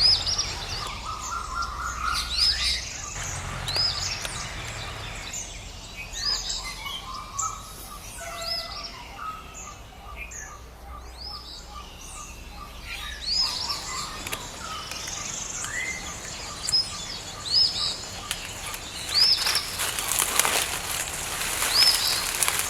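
Forest birds chirping: short high calls repeating every second or two, with stretches of a rapid trill of lower notes.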